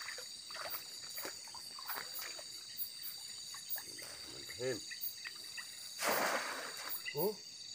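Night chorus of crickets and other insects, a steady high buzz with an even pulsing, with frogs croaking twice. About six seconds in comes a brief rush of noise.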